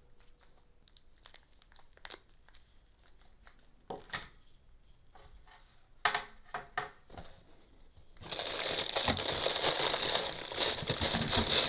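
Packaging being handled: a few light clicks and rustles, then from about eight seconds in, loud, continuous crinkling as wrapping is unwrapped.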